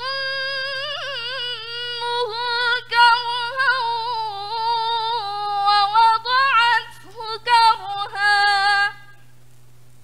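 A woman's voice chanting Qur'anic recitation in the measured murattal style, holding long melodic notes with a brief breath about seven seconds in, and ending its verse about nine seconds in.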